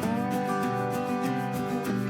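Background music: plucked acoustic guitar playing a melody over a bass line.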